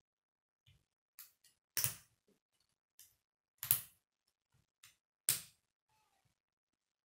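Plastic K'nex rods snapping into connector hubs: a string of sharp clicks, three loud ones about two seconds apart among fainter taps.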